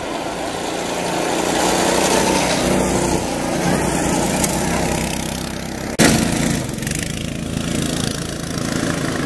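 Small go-kart engine running, growing louder as the kart comes closer; about six seconds in the sound changes abruptly to kart engines running close by.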